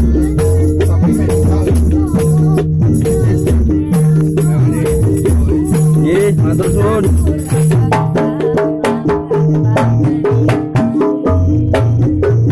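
Live Javanese gamelan-style ensemble playing, with hand drums, bonang kettle gongs and a steady bass line under a high jingling rattle. About eight seconds in the jingling stops and sharp drum strokes come forward.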